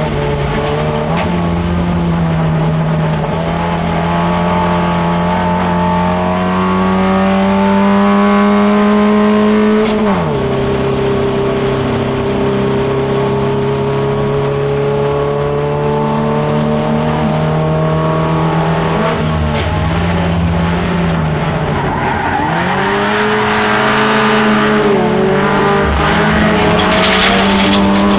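Holden Gemini race car's four-cylinder engine heard from inside the cabin, pulling hard with its pitch climbing steadily. A gear change about ten seconds in drops the pitch, and it climbs again. Around two-thirds of the way through the revs fall and come back up, and a short burst of tyre noise follows near the end.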